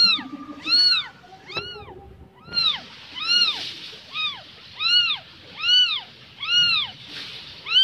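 Newborn kitten meowing over and over, high thin cries that rise and fall, about one every 0.8 seconds: a kitten calling for its mother.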